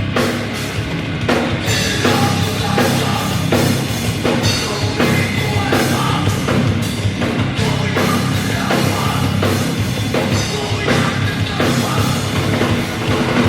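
Rock band playing a heavy, metal-style song, with a drum kit hitting a steady beat under the full band.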